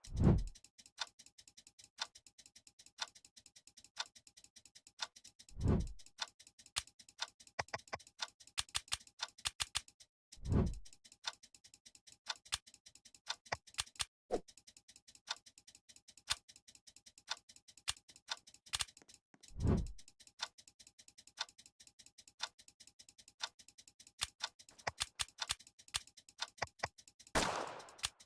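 Clock-like ticking, about one tick a second, with many irregular extra clicks between the ticks. Five low, swelling whooshes are spread through the ticking.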